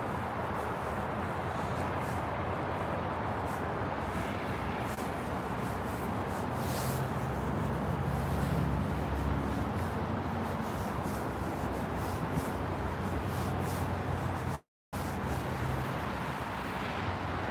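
Steady road-traffic noise with a low rumble that swells as a vehicle passes about eight seconds in. The sound cuts out for a moment near the end.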